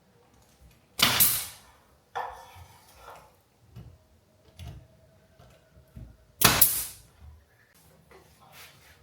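Work sounds of timber boards being fitted to a wall: two loud, sharp bangs, about a second in and about six and a half seconds in, with smaller knocks and clicks between them.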